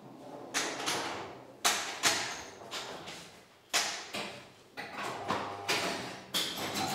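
Billiard play: about a dozen sharp knocks at irregular intervals, each trailing off briefly.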